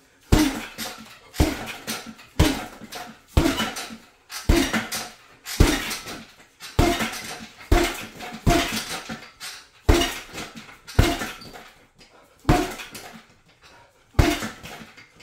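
Gloved hooks landing on a hanging heavy punching bag about once a second, each hit a sharp thud followed by a short ringing rattle from the bag's metal stand.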